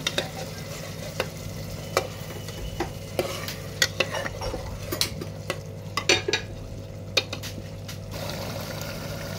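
Metal ladle stirring a thick, sizzling green chickpea and tomato gravy in a pressure cooker pot, with irregular clinks and scrapes of the ladle against the pot.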